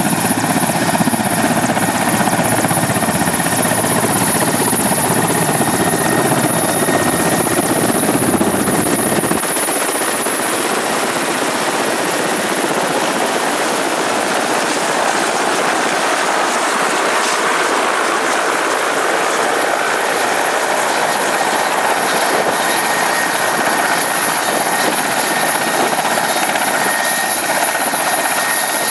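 Mil Mi-171 helicopters' twin turboshaft engines and main and tail rotors running on the ground while taxiing: a loud, steady rush of rotor and turbine noise with a high steady whine. The deep low rumble drops out abruptly about nine seconds in.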